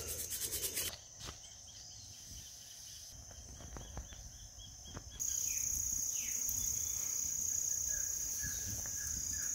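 Steady high-pitched drone of insects, which gets much louder about five seconds in.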